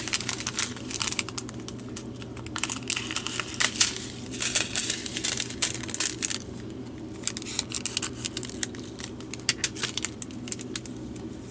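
Crinkling of a small plastic packet of resin diamond-painting drills, with the tiny drills clicking and rattling in dense clusters as they are poured into a storage container.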